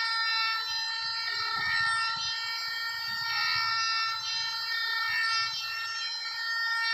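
An electric power tool's motor running at a steady speed, giving a high, unwavering whine, with irregular low knocks underneath.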